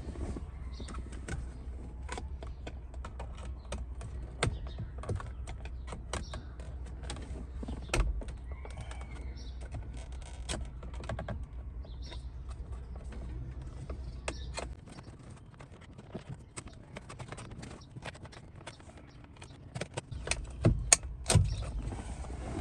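Irregular clicks, taps and knocks of a tool prying and pushing at the release clips of a Fiat steering-wheel airbag, with small plastic and metal rattles and a few louder knocks, the loudest near the end as it comes free. A steady low rumble underneath stops about two-thirds of the way through.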